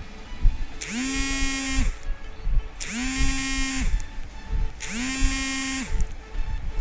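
Mobile phone vibrating with an incoming call: three buzzes of about a second each, two seconds apart, each rising briefly in pitch as it starts, with a fourth starting at the very end. Background music plays underneath.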